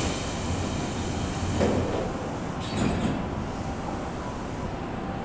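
Tobu Skytree Line electric train running on the track, a steady low rumble and hiss, with two brief louder bumps about two and three seconds in.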